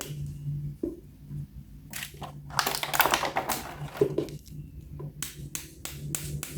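Plastic toys being handled: scattered clicks and rustles, busiest around the middle, then several separate sharp clicks near the end, over a faint steady low hum.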